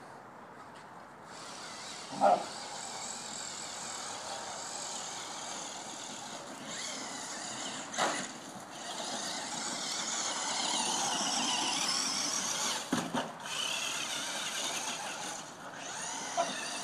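Duratrax Evader electric R/C truck's motor and gears whining as it drives over grass, swelling and easing with the throttle and loudest a little past the middle. A few short sharp sounds break in, about two, eight and thirteen seconds in.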